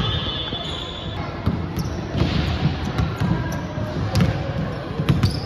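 Basketball being dribbled on a hardwood gym floor: repeated low bounces in an uneven rhythm, echoing in a large sports hall.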